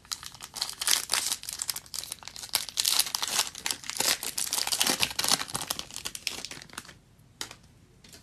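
Panini Prizm football card pack's foil wrapper being torn open and crinkled by hand, a dense crackling that dies away about seven seconds in.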